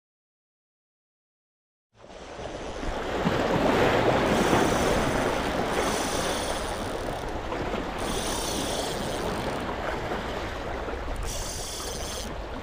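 Silence for about two seconds, then sea waves washing and splashing over the rocks of a breakwater, a steady rushing that swells and holds.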